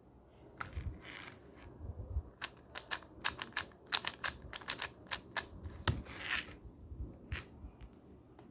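Hand-held 3x3 Rubik's cube being turned: a quick run of sharp plastic clicks and clacks as the layers snap round, with a few scattered ones near the end.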